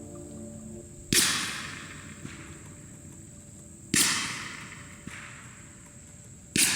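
Three suppressed shots from a .300 Blackout rifle firing 220-grain subsonic Fiocchi ammunition, about three seconds apart. Each is a sharp report that dies away over about half a second, with no supersonic crack, followed about a second later by a faint tick.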